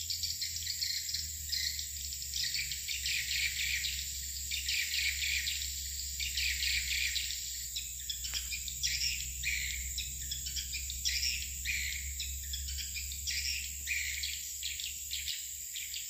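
Swiftlets' calls: a dense, continuous chatter of rapid high chirps, with a steady high-pitched tone underneath and one falling glide about halfway through.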